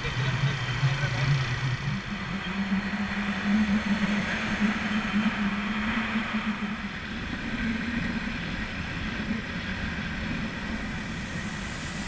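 Motorcycle engine running while riding at road speed, its hum stepping up in pitch about two seconds in and then holding steady, with wind rushing over the microphone.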